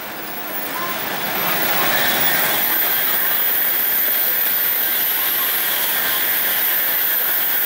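Tokaido Shinkansen bullet train passing at high speed: a rushing noise of air and wheels that builds over the first couple of seconds and then holds steady and loud.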